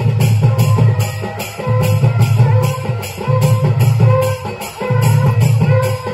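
Traditional Adivasi dance music played live: drums beat a steady, repeating rhythm under jingling percussion, with a held melody line over them.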